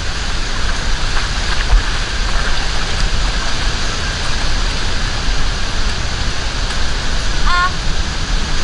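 Wind buffeting the microphone: a steady rushing hiss with low rumbling gusts, and a brief high warbling tone near the end.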